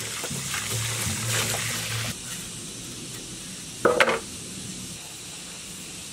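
Water pouring from a hose into a plastic tub and splashing over a diesel piston and connecting rod, stopping about two seconds in. A brief splash follows shortly before four seconds.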